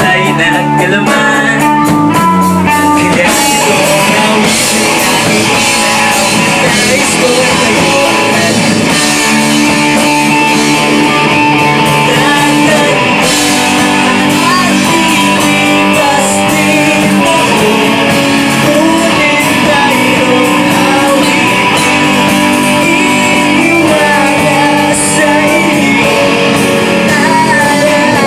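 Live rock band playing: electric guitars and bass guitar, with a lead vocalist singing into a microphone.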